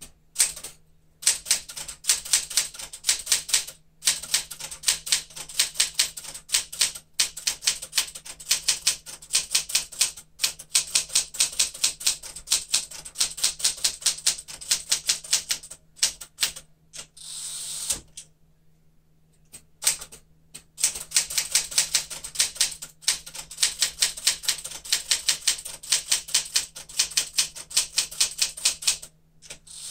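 1975 Smith-Corona Galaxie Twelve manual typewriter being typed on at a fast, steady pace, a rapid run of sharp key and typebar strikes. The typing pauses a few times, and about two-thirds of the way in there is a short rushing sound before the strikes start again.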